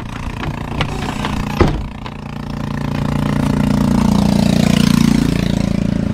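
Sharp clicks of a key and latch on a truck's metal side storage box, the loudest about a second and a half in. Then a truck engine nearby grows louder, peaks about four to five seconds in, and eases off.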